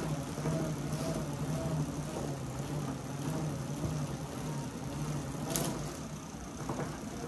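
Road bike tyres spinning on Tacx bicycle rollers, a steady low mechanical hum with a rhythmic pulse about twice a second from the pedalling. A single sharp click about five and a half seconds in.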